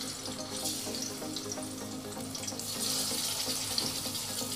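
Hilsa fish steaks sizzling as they shallow-fry in hot mustard oil in a kadai, a steady hiss that grows louder about three seconds in.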